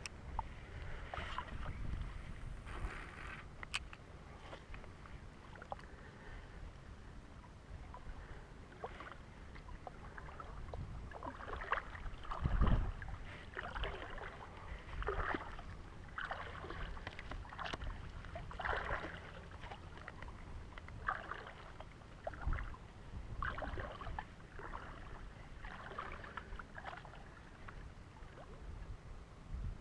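Sloshing splashes of someone wading through shallow water, coming irregularly every second or so over a low rumble, with one louder thump about twelve seconds in.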